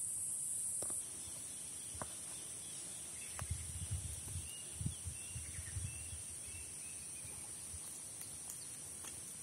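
Steady high-pitched insect drone, louder for the first second, with faint bird chirps and soft footstep thuds in the middle.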